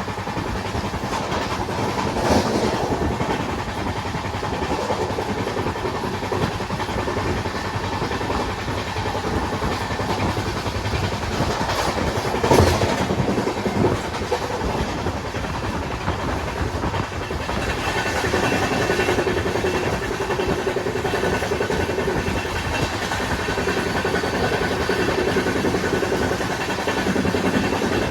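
Indian Railways train running on the track: a steady rumble of wheels on rails with a few sharp clanks. About two-thirds of the way in, a steady high tone joins the rumble.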